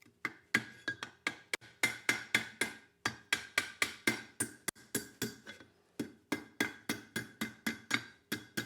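Blacksmith's hand hammer striking hot steel on an anvil in a steady rhythm, about four blows a second, each blow with a short metallic ring.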